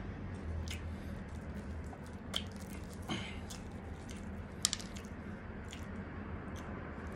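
Chewing and the crackle of breadcrumb-crusted deep-fried chicken being torn apart by hand: a string of small crisp clicks, with sharper crunches about two and a half and four and a half seconds in, over a low steady hum.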